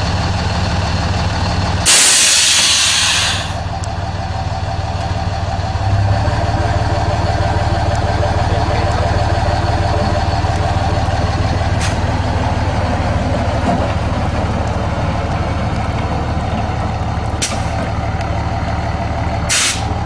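Suspension on a lowered pickup truck letting its air out in one loud hiss lasting about a second and a half, as the body drops, over the steady idle of the truck's engine. A few short hisses from the valves follow later, the last ones near the end.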